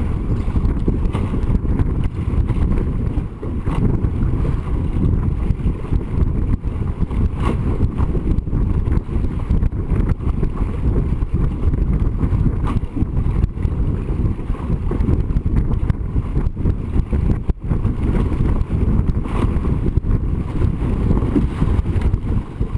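Heavy wind rumble on the microphone of a camera mounted on a racing sailing dinghy under way, over the rush of water and spray along the hull, with occasional short knocks.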